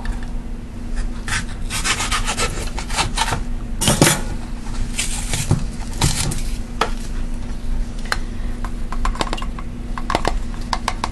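Plastic container of malt powder being opened and handled: a run of clicks, taps and scrapes from the lid and container, thinning out in the last few seconds as the powder is tipped into a measuring cup. A steady low hum runs underneath.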